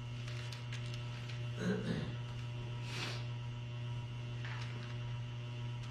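Steady low electrical mains hum through the church sound system during a pause in speech, with a brief faint noise about three seconds in.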